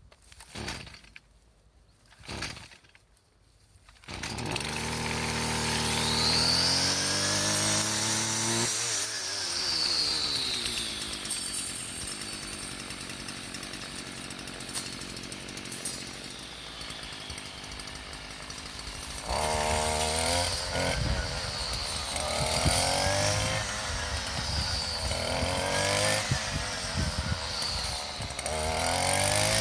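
Stihl two-stroke chainsaw started by hand. It catches about four seconds in after two short pulls, revs up and runs, then from about two-thirds of the way through is revved up and down again and again.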